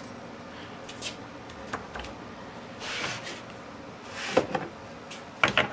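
A few light metallic clicks and clunks, with two short brushing swishes, as the tool post and compound of a South Bend 9-inch metal lathe are handled, over a faint steady hum.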